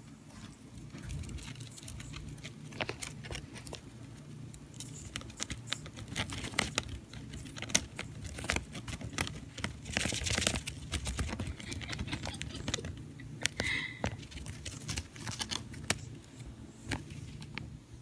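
Dwarf hamster scrabbling among wooden sticks and cellophane: irregular small clicks, taps and rustling, with a louder burst of rustling about ten seconds in.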